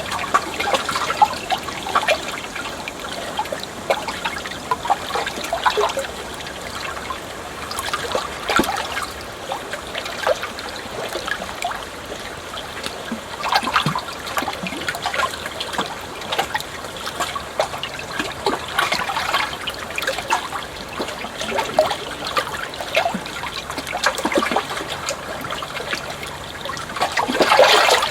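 Water flowing and trickling, with many irregular small splashes and a louder surge of water near the end.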